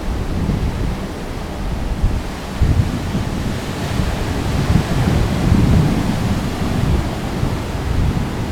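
Ocean surf breaking and washing up a sandy beach, swelling about halfway through, with wind rumbling on the microphone.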